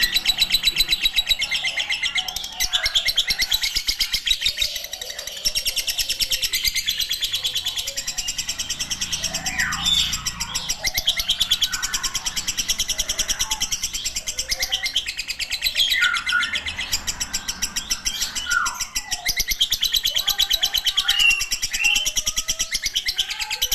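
Lovebird in a long ngekek: a rapid, unbroken chattering trill that runs on without a pause. A few shorter, lower calls slide downward now and then.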